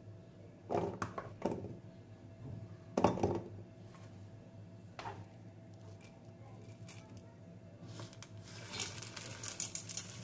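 Pieces of ginger and garlic dropped into an empty stainless steel mixer-grinder jar: a few separate knocks and clinks on the metal, the loudest about three seconds in. Near the end, roasted gram dal is poured in, a quick rattle of many small hard grains hitting the steel.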